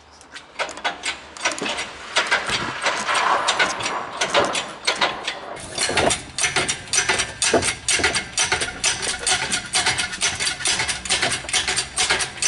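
Rapid, uneven metallic clicking of a ratchet handle undoing the cylinder head bolts on a Kia van's diesel engine. After a cut at about six seconds, the ratcheting and rattling of the chain hoist lifting the head off carry on.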